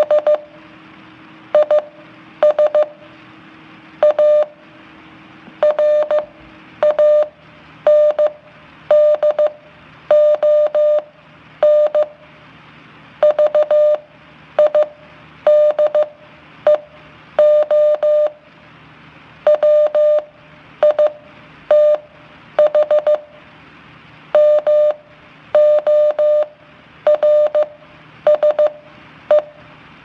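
Morse code sent as a single steady mid-pitched beep tone, keyed on and off in short dots and longer dashes with pauses between letters and words.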